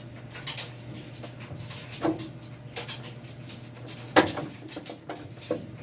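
Steel pry bars knocking and clanking against a VW Squareback's torsion-bar hatch hinge as it is levered into place. There are four short sharp knocks, the loudest just after four seconds in, over a steady low hum.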